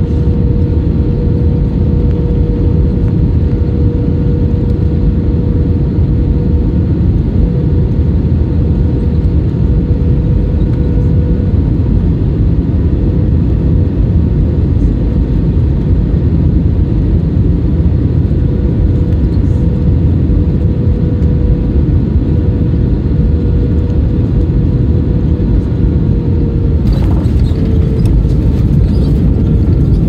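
Airliner cabin noise on final approach: a loud, steady rumble of engines and airflow with a constant hum. About 27 seconds in, a rattling, hissing noise joins as the plane touches down and the wing spoilers deploy.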